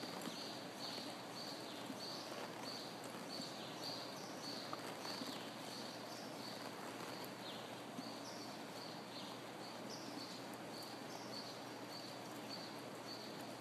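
Tennessee Walking Horse moving at a steady gait on soft arena dirt: faint, regular hoofbeats, about two a second, over a low background hiss.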